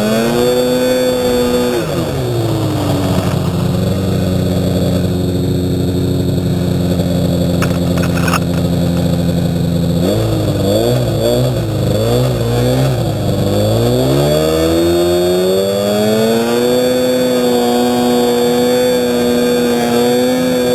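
Yamaha Phazer 480 snowmobile's two-stroke engine working in deep snow. It starts at high revs and drops to a low, steady run about two seconds in. After about ten seconds it is blipped unevenly several times, then climbs back to a steady high rev for the rest.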